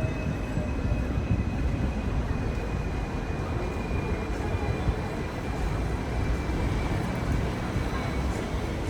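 Hong Kong electric double-decker tram running along its rails, heard on board: a steady rumble with a thin whine that slowly falls in pitch.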